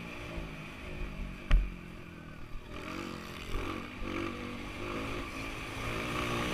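Honda CRF230 four-stroke single-cylinder dirt bike engine heard on board. It is off the throttle and running low through a turn, with a sharp thump about one and a half seconds in. From about halfway it revs back up as the bike accelerates out.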